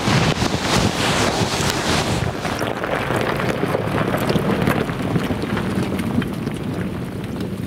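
Wind buffeting the microphone: a steady rough rushing.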